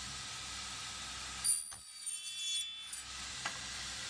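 Circular saw fitted with an aluminium-cutting blade running with a steady hiss, then cutting through an aluminium extrusion about a second and a half in. The cut is a high-pitched ringing screech lasting about a second and a half, after which the saw goes back to its steady run.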